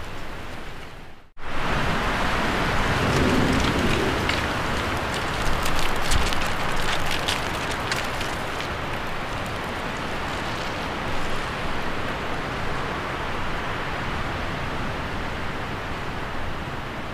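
Steady rushing noise with no clear pitch, broken by a brief dropout about a second in, with light crackles between about five and eight seconds.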